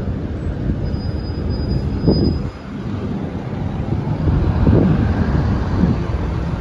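Low rumble of road traffic mixed with wind buffeting the phone microphone, swelling several times, with a faint thin high whine for a second or so early on.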